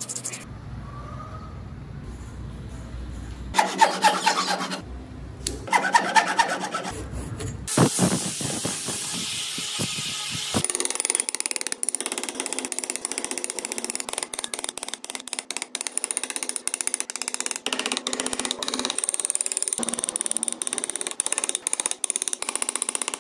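Hand tools working wood: a file or sanding stick rasping over a carved grille, with two short pitched scrapes about four and six seconds in. From about halfway through comes a long run of quick, irregular clicks as chisels and gouges cut into the wood.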